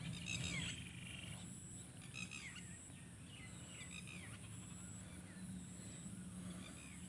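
Birds calling faintly: scattered short, falling chirps every second or so over a low steady hum.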